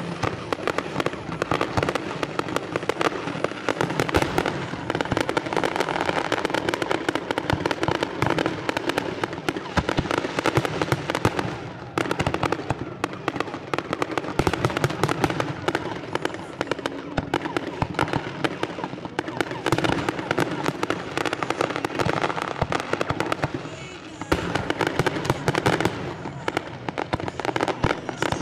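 Fireworks display: a dense, continuous run of bangs and crackling, many each second, easing briefly about twelve seconds in and again near twenty-four seconds.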